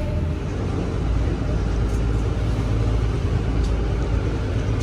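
A boat's engine running, a steady low rumble under a hiss of wind and water.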